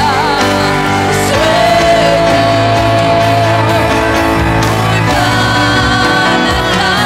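Church praise and worship music: singing over instrumental accompaniment, with a voice holding one long note from about a second in.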